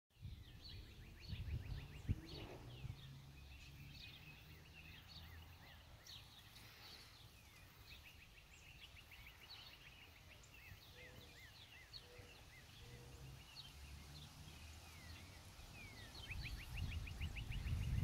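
Several songbirds chirping and singing, with rapid trills and short down-slurred notes, over a low rumble that grows louder near the end.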